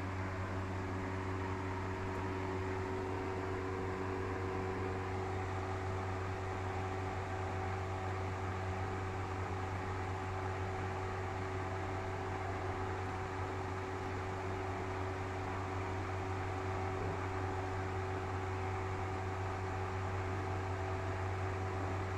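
A steady mechanical hum: a low drone with a few faint constant tones above it and a soft hiss, unchanging.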